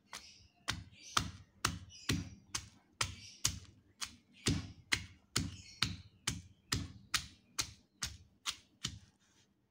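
Stone pestle pounding raw shallots and garlic in a stone mortar, a steady train of strikes at about two a second that stops near the end.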